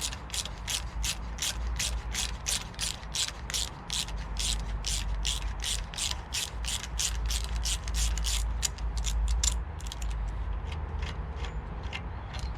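Hand ratchet being worked in steady strokes, clicking about three to four times a second. The clicks grow fainter and uneven near the end.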